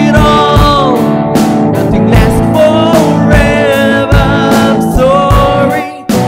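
A man singing a pop-punk rock song over electric guitar and drums, with a steady drum beat; the music dips for a moment just before the end.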